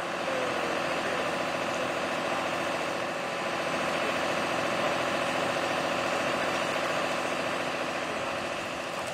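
An engine idling steadily with an even, unchanging hum.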